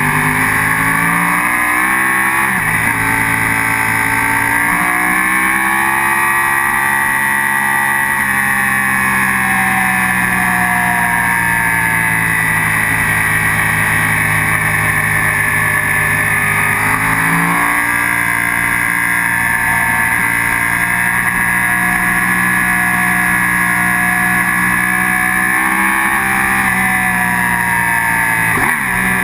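Sport motorcycle engine running hard on a race track, heard from a camera mounted on the bike; the engine pitch rises and falls through the corners, with a sudden change in pitch about seventeen seconds in.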